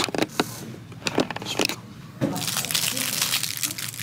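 Plastic packaging being handled: a few clicks and taps, then dense crinkling from about two seconds in.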